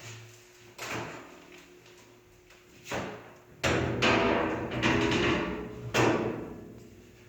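Steel tailgate of a 1951 Ford truck clanking against the steel bed as it is lifted up and laid on top. There are single knocks about one and three seconds in, then the loudest part, a ringing metal clatter, in the middle.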